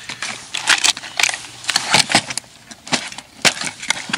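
Rummaging in a plastic ice-fishing tackle box: irregular clicks and clatter of plastic lure boxes being moved and small metal balancer lures rattling inside them.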